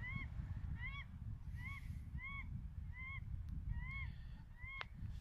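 A duck or goose giving a honking call over and over, about eight times at an even pace of one call every two-thirds of a second, each call rising then falling in pitch. These are alarm calls at an intruder on its territory.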